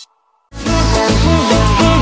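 Brief silence, then upbeat music starts abruptly about half a second in, with a steady heavy bass beat and a melody over it.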